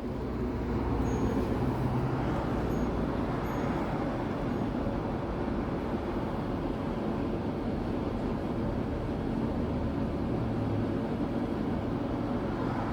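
Engel R3000IE inverter generator running steadily under load, powering an air conditioner and a battery charger.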